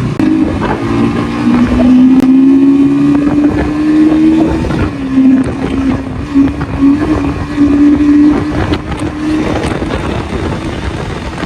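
Motorcycle engine running steadily under way, its note wavering slightly in pitch, with wind rumbling on the microphone.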